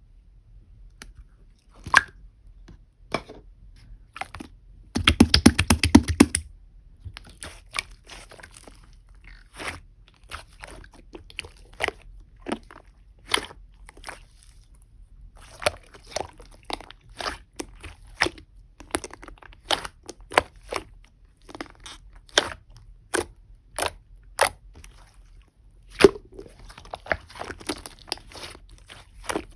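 Pink slime mixed with clay being pressed and worked by hand, giving scattered crisp clicks and pops, with a fast run of pops about five seconds in.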